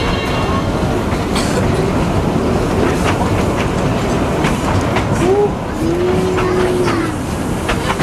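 Passenger cars of a narrow-gauge train rolling along the track, heard from aboard: a steady rumble of wheels on rail with scattered sharp clicks from the rail joints.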